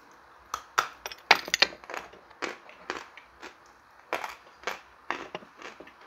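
Chalk being bitten and chewed close to the microphone: a run of dry, sharp crunches, roughly two a second.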